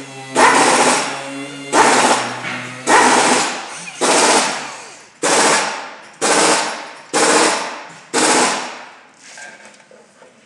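Handheld rotary polisher buffing a plastic headlight lens, run in short bursts about once a second, each starting suddenly and dying away, until it stops near the end.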